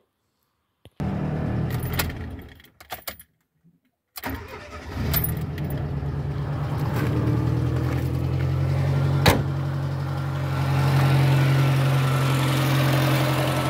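Fiat Cinquecento's petrol engine starting and settling into a steady idle, on its first run after the cooling system was refilled. There is one sharp knock about nine seconds in.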